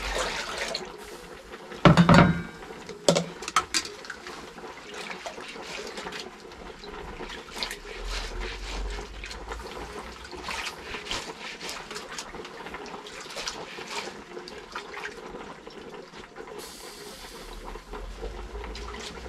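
Hands rubbing and sloshing soaked seeds in water in a metal saucepan, a soft steady wet scrubbing and grating, done to loosen and strip the hard seed coats. About two seconds in there is a loud knock of pot or water, and a smaller one a second later.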